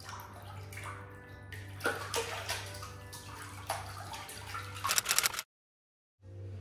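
Hot-tub water bubbling and splashing around dangling feet, over a low steady hum. It cuts off suddenly about five and a half seconds in.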